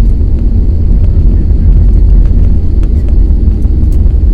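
Airbus A321neo landing: a loud, steady low rumble, with faint scattered ticks above it.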